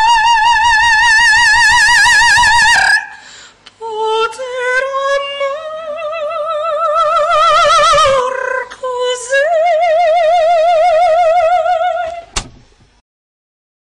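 Operatic soprano singing an Italian aria with wide vibrato: a long held high note, a brief pause, a rising phrase, then another long held note. The singing ends about twelve seconds in, with a short click just after.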